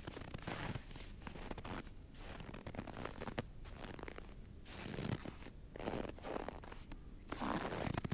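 Footsteps crunching and squeaking in frozen, dry snow at about −15 °C, a rough rasping crunch with each step at a walking pace.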